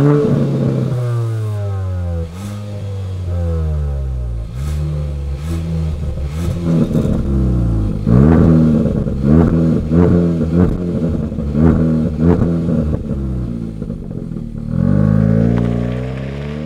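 Kia Soul GT Line's 1.6-litre turbocharged four-cylinder free-revving through an aftermarket exhaust fitted with a switchable valve. A few slower revs rise and fall, then from about eight seconds in, with the valve switched on, come quick sharp throttle blips about once a second, ending with a longer rev that falls away.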